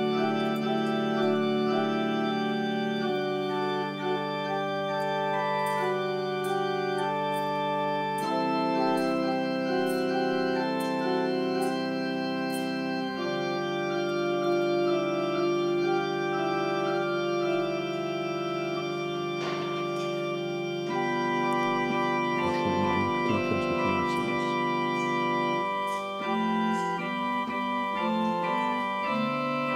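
Organ playing slow, sustained chords that change every few seconds.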